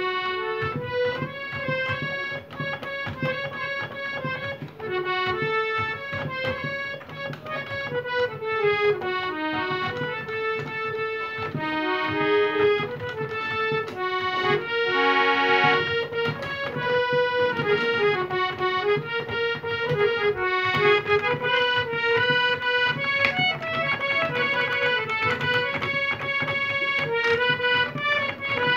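Hand-pumped harmonium played solo: a reedy melody on the keys over a steady low note, with a held chord about halfway through.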